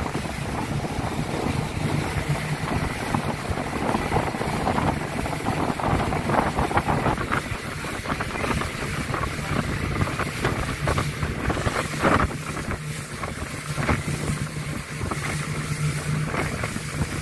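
Motorboat under way: a steady low engine hum under wind buffeting the microphone and water rushing and splashing past the hull.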